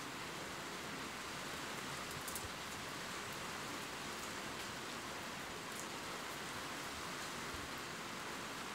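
Steady rain falling: an even, continuous hiss, with an occasional faint tick of a single drop.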